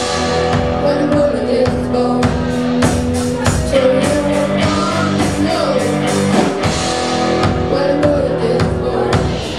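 Live rock band playing: electric guitars and a drum kit keeping a steady beat.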